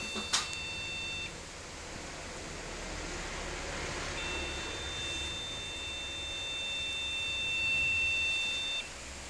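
A desktop PC beeping with a long, steady, high-pitched tone. One beep cuts off about a second in, and another sounds for about four and a half seconds from near the middle almost to the end.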